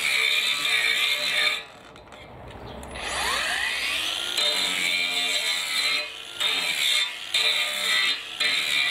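18 V brushless cordless angle grinder running with a high whine, stopping about a second and a half in, then spinning back up with a rising whine. Its sound dips briefly three times near the end.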